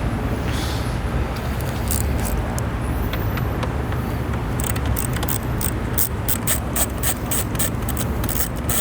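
Small metallic clicks and clinks of hand tools and bolts while the airbox bolts are undone, coming thick and irregular from about halfway through, over a steady low rumble.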